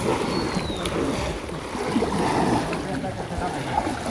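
Pond water sloshing and splashing around people wading through it, with voices calling in the background.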